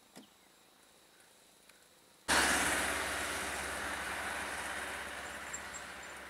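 A motor vehicle driving close by: steady engine and road noise that starts suddenly about two seconds in and slowly fades as the vehicle pulls away. Before it there are only a few faint clicks.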